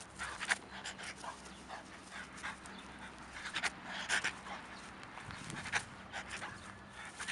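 French bulldog panting in short, irregular breaths while jumping and playing.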